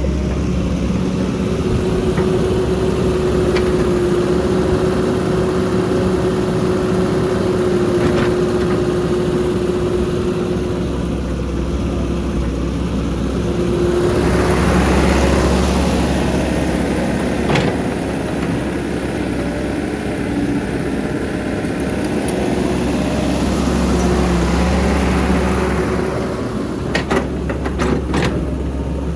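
Heavy diesel engine of construction machinery running steadily, swelling louder twice as it comes under load: once around the middle and again in the last third. A few sharp knocks come near the end.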